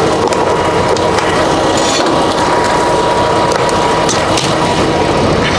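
Tractor-trailer's diesel engine running steadily, with a few light clicks and knocks of the air lines being handled and coupled.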